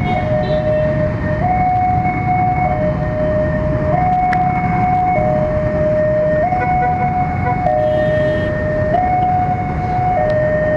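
Railway level-crossing warning alarm sounding its two-tone signal, stepping back and forth between a lower and a higher note, each held about a second and a quarter, warning that a train is approaching. Road traffic noise runs underneath.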